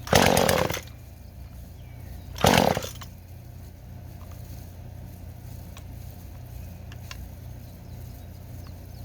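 Husqvarna 240 two-stroke chainsaw engine firing in two short, loud bursts about two seconds apart, over a steady low hum.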